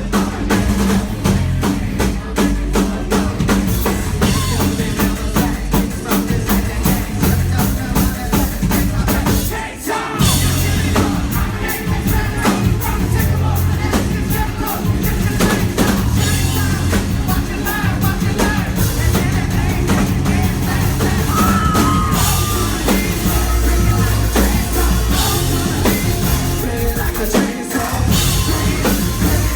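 Live rock band playing loudly, driven by a drum kit, with a brief drop in the sound about ten seconds in.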